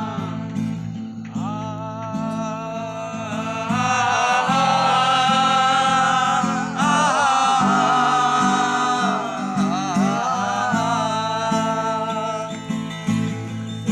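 Music: a Bengali song with guitar accompaniment, a voice holding long notes with a few sliding turns between the sung lines.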